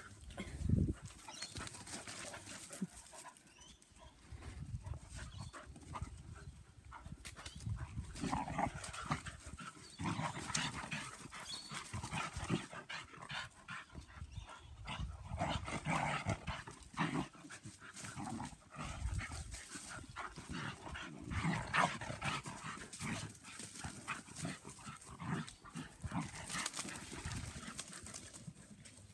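Several German Pinschers vocalizing as they play-fight and chase one another, in short repeated bouts of dog noises mixed with scuffling.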